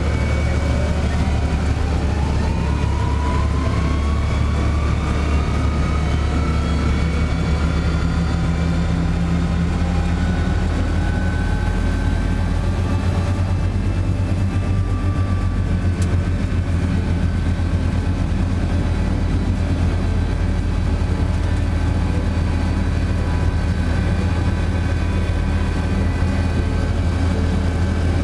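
Farm tractor's diesel engine running steadily under way, with a thin whine that climbs in pitch over the first several seconds and then holds level.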